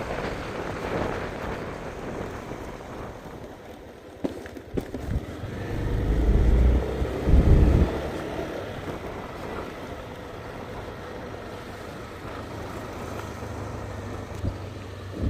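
A motor vehicle running, with wind rushing over the microphone; heavy low rumbling gusts swell up about five to eight seconds in, and there are a couple of sharp clicks just before.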